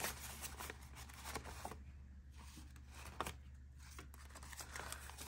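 Paper banknotes rustling and flicking faintly as they are counted and sorted by hand, in scattered crisp ticks over a low steady hum.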